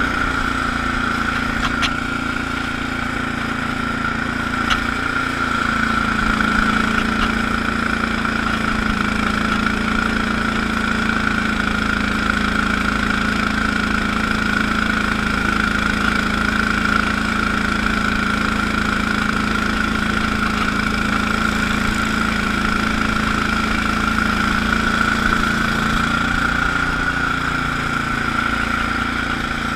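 Allis-Chalmers HB-112 garden tractor engine running steadily while the tractor drives a 48-inch Sweepster rotary broom through snow, with a steady high whine over the engine note.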